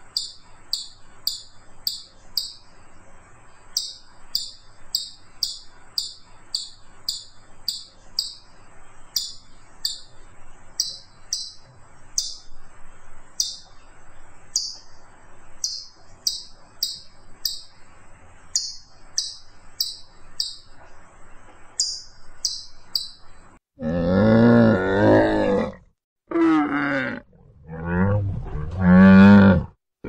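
Rapid high chirps, about three a second, each falling in pitch. From about eight seconds before the end, Bactrian camels groan and bellow: three long, loud, low calls with a wavering pitch.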